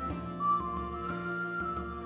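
Background music: a traditional folk-style tune with a flute-like melody of held, stepping notes over a steady accompaniment.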